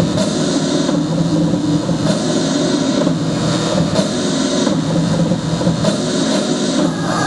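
Dance-routine music playing loudly through a gym sound system, here a sustained droning passage with steady held tones and a strong hiss, like a jet-engine effect in the mix.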